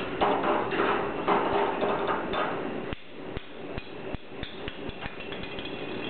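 Rustling and rattling as a plastic ball is handled against a wire birdcage, then sharp irregular taps and clicks on the cage bars, a few a second, from about halfway through.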